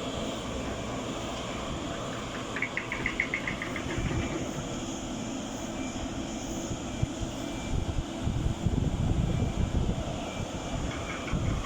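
Steady low rumble of heavy machinery running, with a quick rattle of about a dozen clicks between two and three and a half seconds in, and rougher, louder low rumbling from about eight to ten seconds in.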